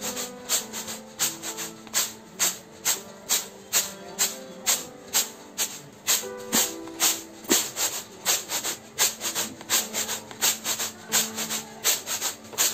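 Whole black urad grains rattling and swishing in a woven chhaj winnowing basket as it is flicked in a steady rhythm, about three strokes a second, shaking out the fine broken bits from the cleaned dal. Soft background music with held notes plays underneath.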